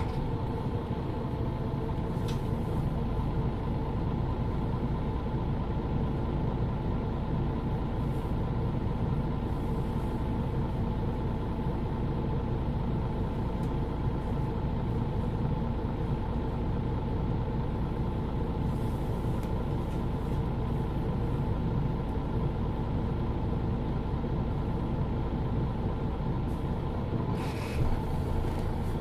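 A MAN Lions City city bus's diesel engine idling steadily while the bus stands at a stop, with an even hum that holds the same pitch throughout. A brief hiss comes near the end.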